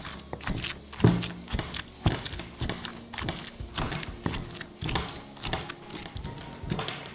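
Wooden pestle pounding pine nuts and basil in a stone mortar: repeated irregular knocks, the loudest about a second in, over background music.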